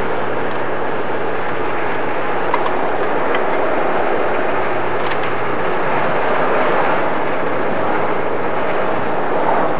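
Steady road noise inside a moving car's cabin: engine and tyre rumble with a constant low hum.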